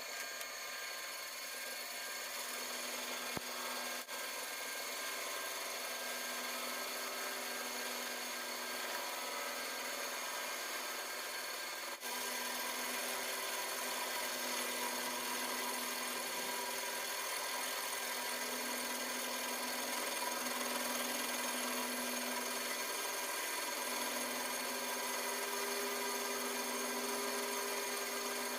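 A lathe running steadily, a constant rushing machine noise with several steady whining tones.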